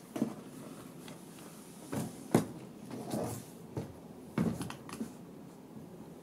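Handling of a 2-litre plastic PET bottle: a string of irregular knocks and crinkling rustles as the bottle is turned and shifted, the sharpest knock about two and a half seconds in.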